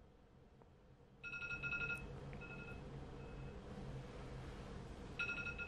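Mobile phone ringtone going off: a quick run of high electronic beeps about a second in, then fainter repeats of the phrase, which starts again near the end. Under it runs a low, steady hum.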